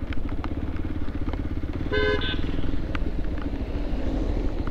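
Motorcycle engine running steadily while riding, with one short vehicle horn toot about two seconds in.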